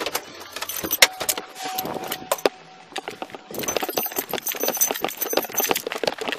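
Rapid clattering and rustling of gear on a moving body-worn camera: a fast, irregular run of clicks and knocks that grows denser about halfway through.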